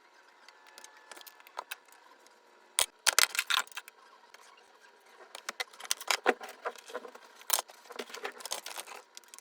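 Small hard objects being handled: irregular clicks, taps and rustles, loudest in a quick cluster about three seconds in and busy again through the second half.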